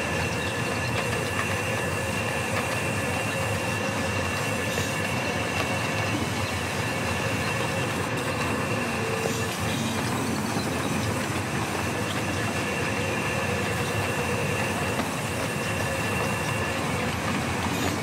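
Vertical band saw mill sawing lengthwise through a log: a steady dense noise of the running blade and machine, with a thin high squealing tone that fades out for several seconds midway and then comes back.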